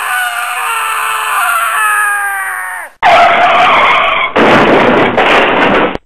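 Loud edited-in sound effect: a high whine with many overtones sinking slightly in pitch for about three seconds, then a sudden loud rushing roar that breaks off briefly about a second later and stops abruptly near the end.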